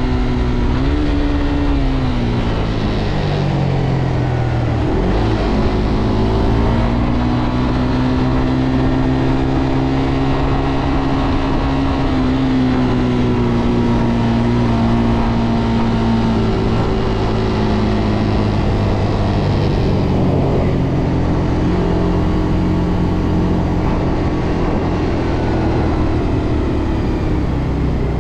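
Engine of a stock Suzuki GSX-R125, a small single-cylinder four-stroke, heard from on board while riding. Its pitch drops as the bike slows over the first few seconds, climbs as it pulls away, holds fairly steady, then sinks and climbs again later. A steady rush of wind and road noise runs underneath.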